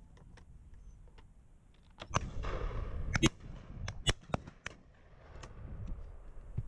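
Shotgun shots at driven pheasants: a handful of sharp reports in the middle, the loudest about three and four seconds in, with fainter shots and clicks around them.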